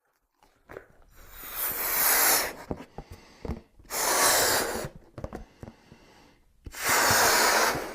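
A person blowing hard into a rubber balloon to inflate it, three forceful blows of rushing air each about a second long, with quieter breathing and a few small clicks between them.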